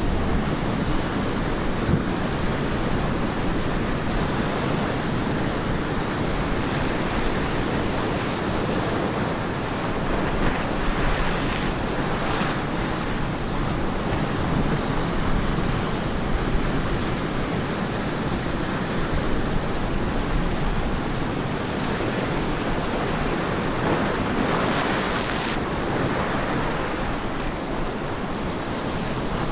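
Ocean surf washing onto a beach in a continuous rush, with two heavier waves breaking, one near the middle and one toward the end.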